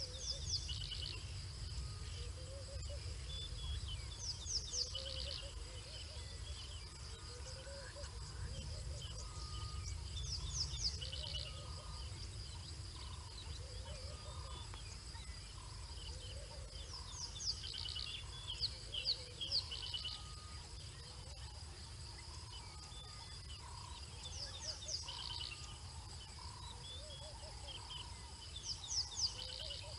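Bush ambience: a steady high-pitched insect drone, with birds giving clusters of quick high calls every few seconds and a lower call repeating every second or two, over a low rumble of wind on the microphone.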